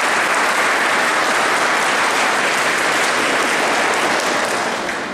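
Applause from a crowd that includes the children, an even clapping that dies down near the end.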